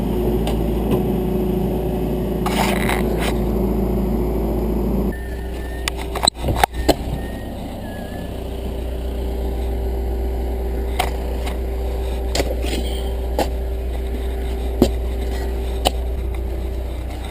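John Deere backhoe's engine running steadily, with scattered sharp clicks and a cluster of knocks about six to seven seconds in.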